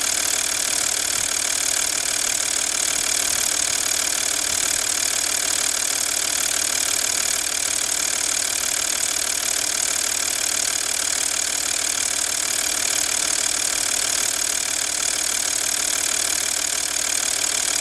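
V6 TDI diesel engine running steadily at a constant speed, giving off the strange noise that the owner is recording.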